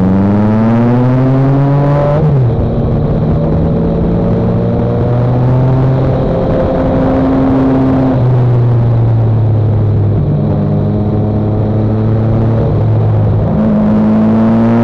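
Motorcycle engine under way: the revs climb over the first two seconds, drop sharply at a gear change or throttle-off, hold at fairly steady pitches with a few step changes, and climb again near the end.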